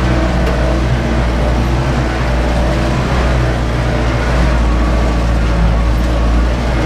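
Ursus 914 tractor's four-cylinder diesel engine running steadily under load while pulling a disc harrow through heavy fallow ground, heard from inside the cab as a deep, constant drone.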